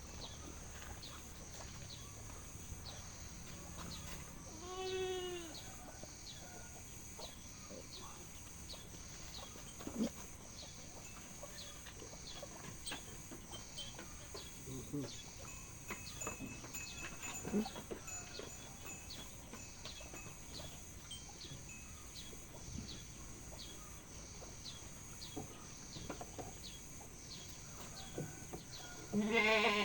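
Young goat bleating twice: a short high call about five seconds in and a louder call near the end. A faint, even ticking of about two a second runs throughout, with a few soft knocks.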